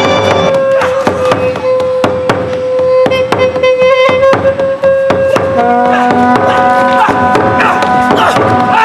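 Music with drum strikes under a long held melody note; about five and a half seconds in the held note gives way to several held notes together.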